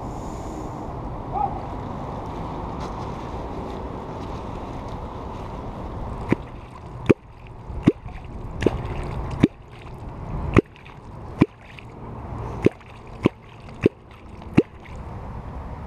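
A catfish clonk struck into the river surface about eleven times, roughly once a second, starting about six seconds in, each stroke a sharp pop; this is the clonking used to call wels catfish up to the boat. Before the strokes, only steady water noise.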